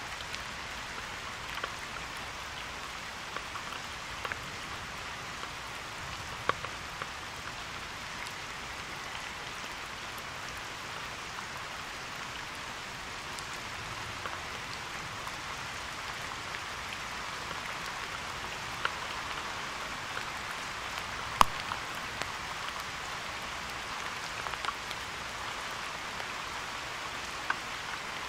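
Steady rain falling, with scattered drops tapping close to the microphone and a couple of sharper, louder taps, the loudest about two-thirds of the way in.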